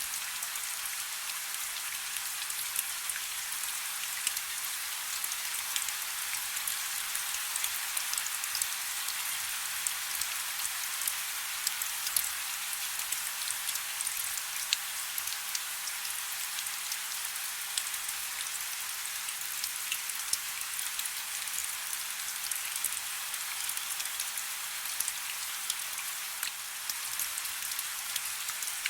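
Soft rain falling: a steady hiss with many small drop ticks scattered through it.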